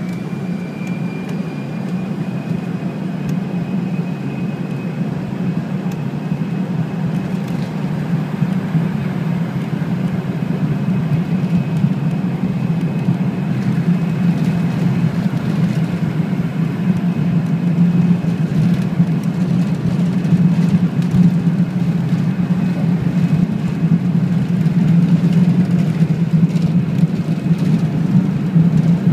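Jet airliner's engines and rolling noise heard inside the passenger cabin, a steady low rumble growing gradually louder as the plane accelerates along the runway for takeoff. A faint high whine fades out in the first few seconds.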